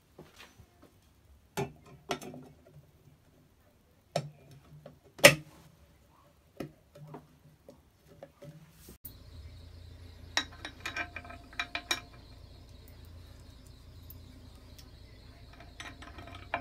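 Clicks and knocks of bench grinder parts being handled and fitted by hand: the wheel guards and the metal body set down and shifted on a wooden bench, with a sharp knock about five seconds in. From about halfway a faint steady hum runs under further clicks as a bolt is fitted through the base.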